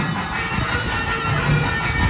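Temple ensemble of nadaswaram and thavil playing: the double-reed pipe holds steady tones over irregular thavil drum beats.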